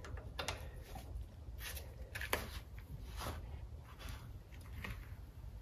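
Faint, scattered clicks and light taps of a socket and breaker bar being handled and fitted onto cylinder head bolts, about six in all.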